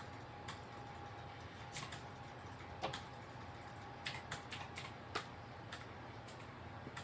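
Faint, scattered light clicks and taps of drawing tools being handled on a desk, about half a dozen irregular ticks in all, over a faint steady hum.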